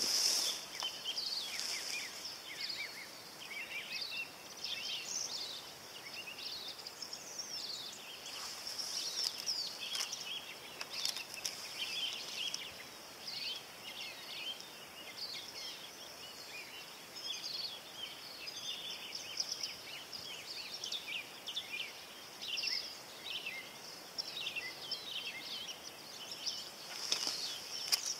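Birds chirping and calling outdoors, many short calls after one another over a steady high hiss. A few light clicks come right at the start and again near the end.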